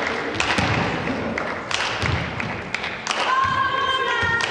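Volleyball rally: a few sharp thumps of the ball being hit and striking the floor, echoing around the sports hall, with players' voices. About three seconds in, a long held shout or chant begins.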